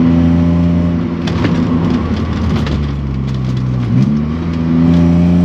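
BMW E30's swapped-in M52B28 2.8-litre straight-six running through its custom exhaust: the revs ease off, dip sharply about four seconds in, then climb steadily as the car accelerates.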